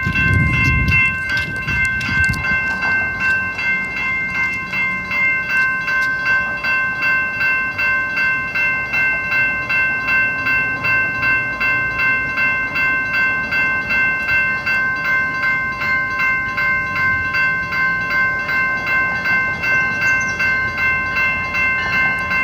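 A train going by, with a steady ringing that pulses evenly about twice a second throughout, over a low rumble that is strongest at the start.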